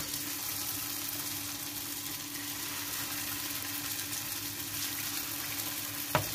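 Churro dough sticks frying in hot oil in a pan: a steady sizzle. A faint steady hum runs underneath, and there is a short click near the end.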